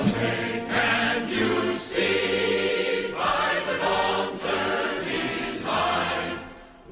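Music with a choir singing, in phrases that swell and break, dropping away briefly near the end.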